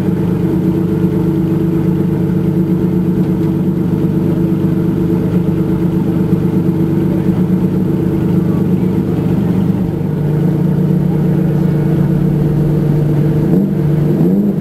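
Ferrari Enzo's V12 engine idling steadily, with a short rise in revs near the end.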